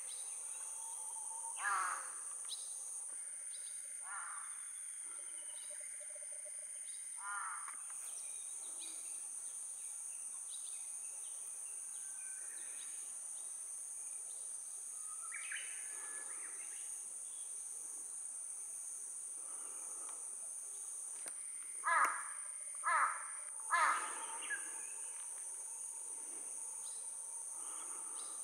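Outdoor ambience: a steady high-pitched insect drone with scattered bird calls, and about three-quarters of the way through, three loud bird calls about a second apart.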